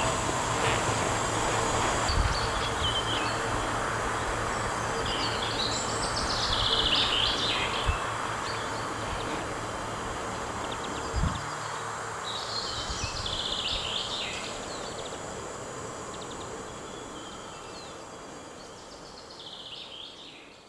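A small bird sings three short song phrases, each lasting about two seconds, several seconds apart, over a steady rushing background noise. The sound fades out near the end.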